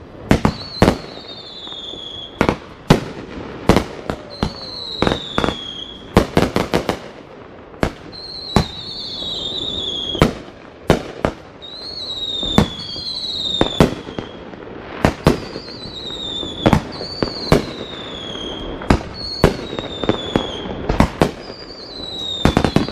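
Fireworks going off in a rapid series of sharp bangs and cracks, some in quick clusters. A short whistle falling in pitch sounds every second or two.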